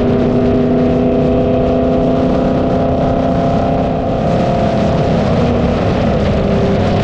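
Cammed LS3 V8 of a Holden Commodore cruising at steady speed, its exhaust holding an even note with no revving, under wind and road noise on the outside-mounted camera's microphone.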